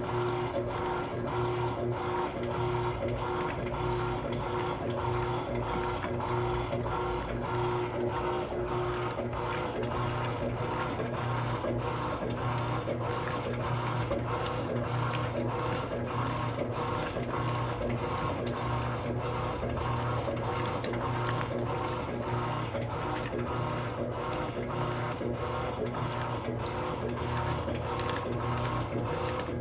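Electrolux Essencial Care LES13 washing machine running: a steady motor hum with a quick, regular mechanical ticking, about three a second, a loud racket. A faint steady tone in the background stops about a third of the way through.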